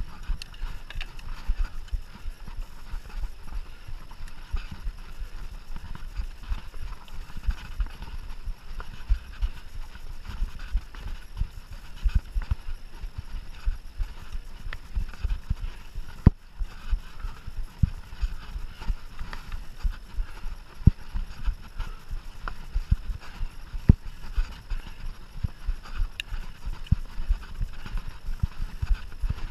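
Mountain bike ridden over rough cross-country trail, rattling and knocking constantly over the bumps, with scattered sharp clicks.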